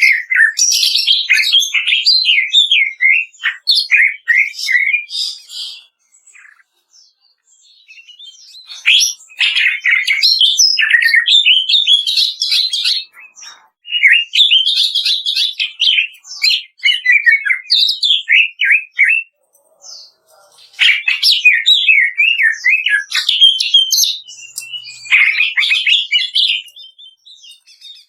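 Greater green leafbird (cucak ijo) singing a rapid, crackling run of chirps and trills, the dense 'kretekan' style, in four phrases separated by pauses of one to three seconds.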